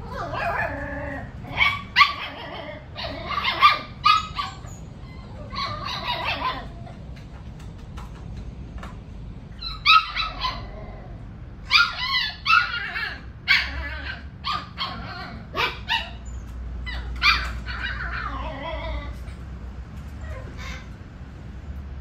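Border collie puppies yipping and whining in a rapid string of short, high calls, in two runs with a pause of a few seconds between them.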